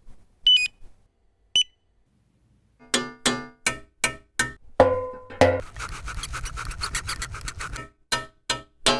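Two short high electronic beeps, then after a pause a quick, even rhythm of short, sharp percussive notes: a sample-based electronic beat.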